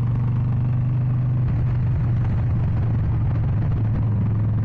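Harley-Davidson XL 883 Iron Sportster's air-cooled 883 cc V-twin running steadily while the bike is ridden along, its exhaust burbling on an even note that wavers briefly about two seconds in.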